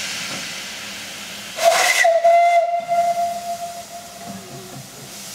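Small narrow-gauge steam locomotive's whistle blown once: a burst of steam hiss, then a single steady note for about two seconds that fades away. Soft steam hiss runs underneath.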